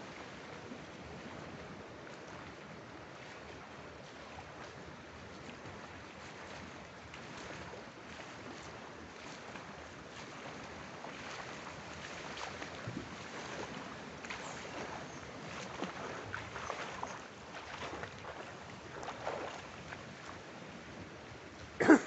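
Swimming strokes splashing in a pool over a steady background hiss, the splashes getting louder and more frequent from about halfway through as the swimmer nears. A single sharp knock just before the end is the loudest sound.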